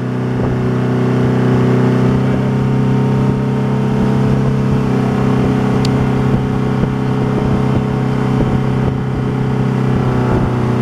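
Motorboat engine running at a steady pitch at speed while towing an inflatable tube, with the rush of the wake and wind underneath.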